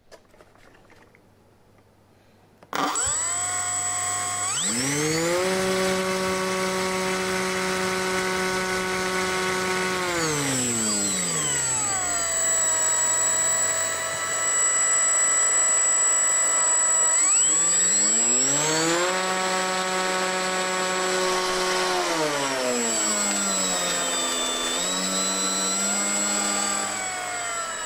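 Brushless outrunner electric motor spinning a model plane's propeller in a bench run-up: it starts about three seconds in, holds a steady high speed, winds down around ten seconds in, speeds up again around eighteen seconds, then steps down and stops near the end, with a steady high whine above it. This is the first power test of the brushed-to-brushless conversion, drawing about 175 to 180 watts.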